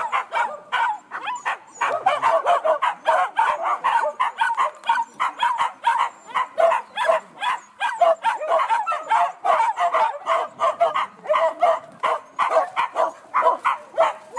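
Several wild boar hunting dogs barking and yelping in quick succession, several calls a second without a break, as they are leashed and let out of their cage.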